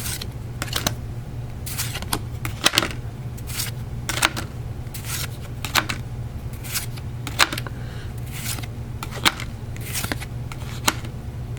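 Pokémon trading cards being handled and flicked through one at a time: an irregular series of short, sharp card snaps, about one a second, over a steady low hum.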